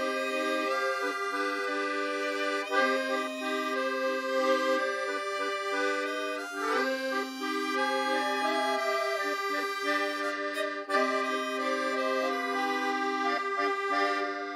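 Instrumental background music: a steady tune of held chords that change every second or so.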